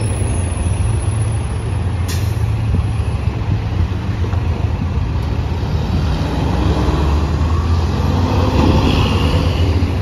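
Road traffic pulling away: a city transit bus and cars running with a steady low rumble, and a short sharp hiss about two seconds in.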